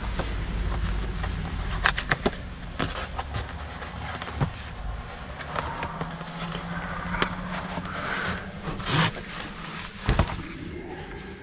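A cardboard cabin-filter box being opened and a new pleated paper cabin air filter slid out and handled: scattered sharp clicks, scrapes and rustles of cardboard and paper, over a steady low rumble.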